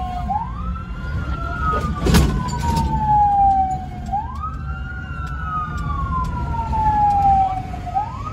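Wailing emergency siren of a fire-brigade vehicle on its way to a fire, each cycle rising quickly then falling slowly over about four seconds, with a second, steadier siren tone above it. Engine and road rumble run underneath, heard from inside a moving car, and a sharp knock comes about two seconds in.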